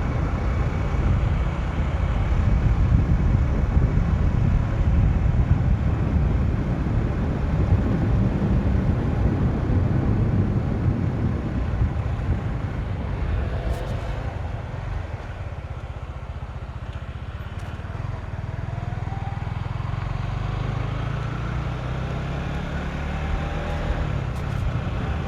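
Motorcycle on the move: a steady low rumble of wind and road noise on the microphone, with an engine note rising in pitch a few times in the second half.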